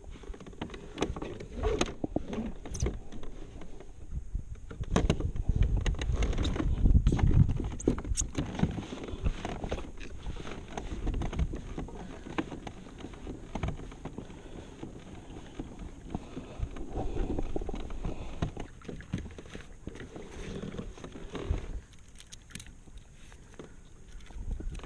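Hobie Mirage pedal-drive kayak under way: water washes along the plastic hull, with irregular small knocks and clicks. Wind buffets the microphone with a louder low rumble about five to eight seconds in.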